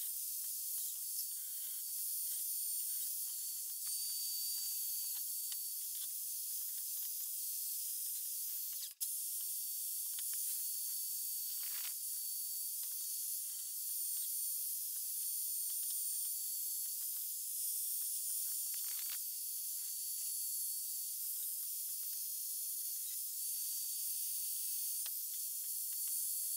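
Continuous abrasive scrubbing on metal as loose paint and rust are knocked off reel mower parts. It breaks off briefly about nine seconds in.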